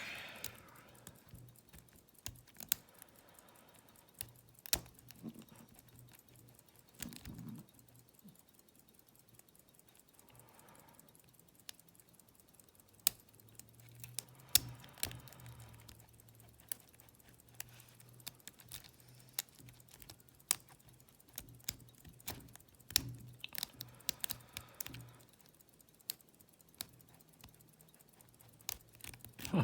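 Lock pick and tension wrench working the pins of an old all-brass Yale padlock: irregular light metallic clicks and scrapes, with a few louder clicks scattered through, as the pick is rocked and raked across the pins.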